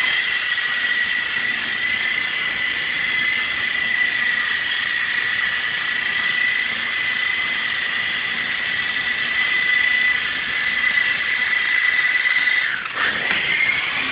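Small RC Apache toy helicopter in flight: its electric motor and rotors make a steady high-pitched whine with a hiss. Near the end the pitch dips sharply and then comes back up.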